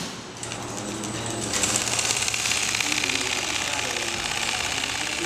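JOOKE CNC template sewing machine stitching quilting lines at a fast, even needle rhythm. It starts up near the beginning and comes up to full speed about a second and a half in.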